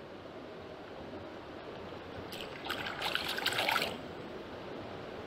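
River water running and trickling, with a louder surge of splashing water about three seconds in.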